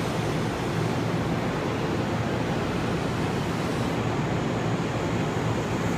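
JNR 185 series electric train moving slowly along a station platform, a steady loud running rumble from its motors and undercarriage.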